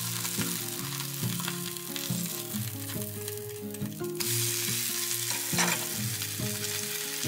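Abalone fritter batter sizzling in hot ghee in a frying pan, with a louder burst of sizzle about four seconds in as the fritter is flipped and laid back in the pan. Soft background music plays underneath.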